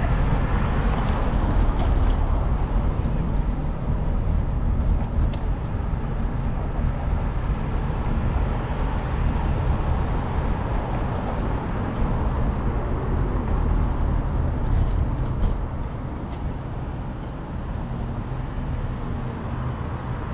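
Steady city street noise from traffic, under a heavy, fluttering low rumble of wind on the microphone while riding a bicycle. It eases off a little about two thirds of the way through.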